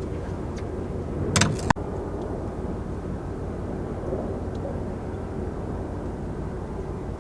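An engine running with a steady low rumble and hum. About a second and a half in, a brief rush of noise ends in a sharp knock.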